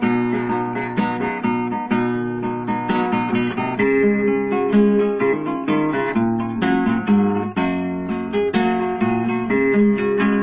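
Acoustic guitar strummed and picked, playing an instrumental interlude between verses of a song.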